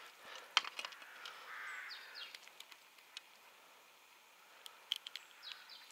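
A crow cawing once, a harsh call a second or so in, with short high bird chirps and a few faint sharp clicks around it.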